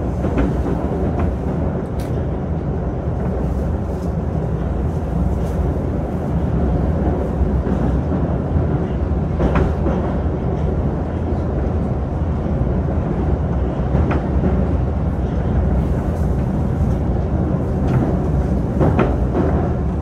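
Moscow 2020 (Moskva-2020) metro train running at speed between stations, heard from inside the car: a steady, loud low rumble with a few sharp clicks now and then.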